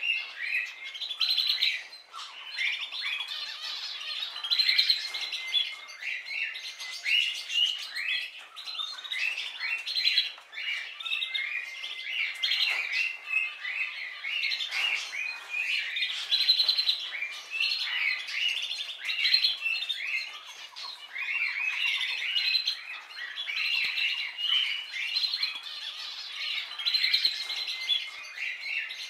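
A dense chorus of many birds chirping and calling over one another, a continuous stream of short high notes with some harsher squawks.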